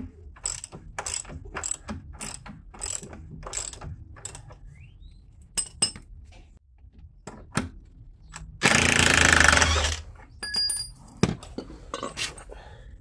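A socket ratchet clicking in steady strokes, about two a second, as a large bolt is worked loose. About nine seconds in, a cordless impact driver runs for about a second and a half, the loudest sound, followed by a few metal clinks and a knock.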